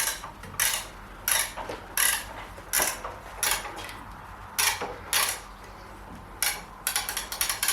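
A series of light metallic clinks and knocks, roughly every half second, with a quick run of them near the end: metal parts or tools being handled on a homemade band sawmill.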